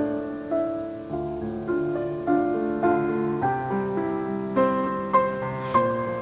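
Slow piano music, a new note or chord struck about every half second.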